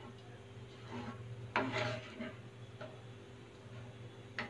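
Spatula stirring a thick, saucy bean curry in a metal pan: soft wet stirring with a few short scrapes and knocks against the pan, about one and a half seconds in, near the middle and just before the end, over a steady low hum.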